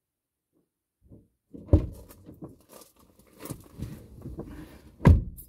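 A run of knocks and rustling handling noise with two heavy thumps, one about a second and a half in and one near the end.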